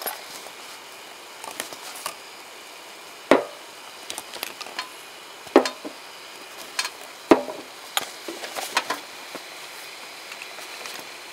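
Objects being handled and set down: three sharp knocks about two seconds apart, each ringing briefly, among lighter clicks and rustles.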